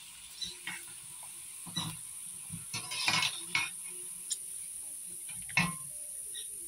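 Hot oil sizzling in an enamel basin as large chicharrón sheets fry, with a few clinks and scrapes of a metal fork and ladle against the pan as the sheets are pushed, turned and lifted out.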